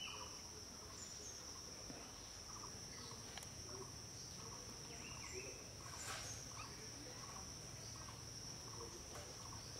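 Rural outdoor ambience: a steady, high-pitched insect trill with faint short chirps repeating through it.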